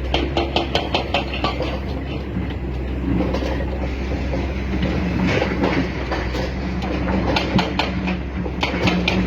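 Excavator working: a steady machine hum with bursts of rapid clicking and rattling, about six clicks a second near the start and again in clusters later, like track links or gears clattering.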